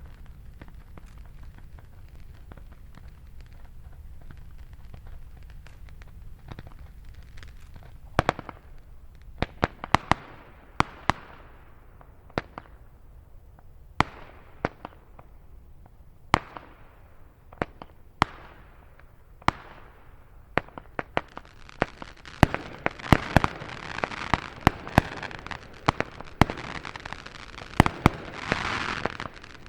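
A Weco Nightwing 112-shot compound firework battery firing. After a low steady rumble, sharp single bangs start about eight seconds in, roughly one a second, each followed by a fading hiss. From about twenty-two seconds in the shots come thick and fast over a dense crackle.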